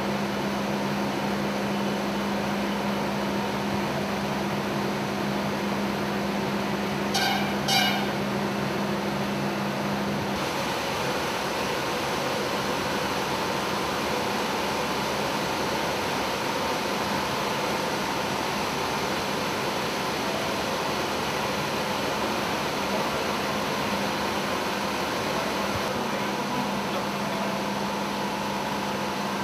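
Steady hum and hiss of running industrial plant machinery. About seven seconds in come two short high-pitched tones in quick succession, and the deeper part of the hum drops out about ten seconds in.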